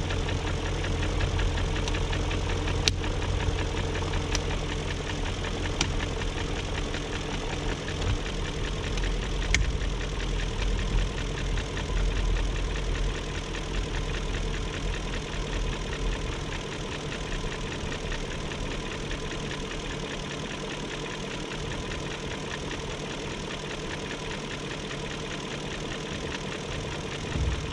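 BMW 740i's 4.4-litre M62TU V8 idling steadily after a timing chain guide and tensioner replacement, with a few faint sharp clicks in the first ten seconds. It still has a tick that the new guides have not cured, which the owner suspects may come from the VANOS unit.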